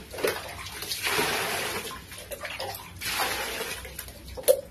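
Water scooped with a plastic dipper and poured out of a large plastic tub, splashing in two pours about two seconds apart, with small splashes and knocks between them.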